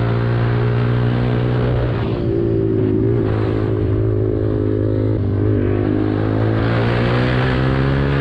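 Motorcycle engine running at fairly steady revs while riding, heard from the rider's position. Wind rushes over the microphone, and the engine pitch dips slightly a few times.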